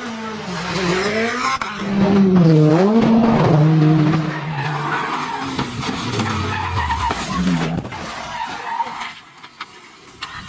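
Rally car engine at speed, revving up and down in pitch through gear changes, loudest from about two to four seconds in and dropping away near the end.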